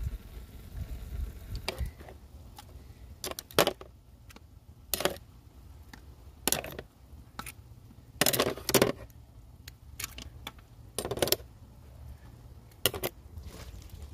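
Metal tongs clicking and clinking against abalone shells and a board: about a dozen short, separate, sharp clinks, with a tight cluster about eight seconds in.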